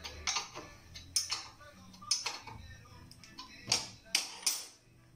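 Tools and metal parts clicking and tapping against a motorcycle engine's crankcase as they are handled during assembly. The clicks come one at a time, several of them in quick pairs.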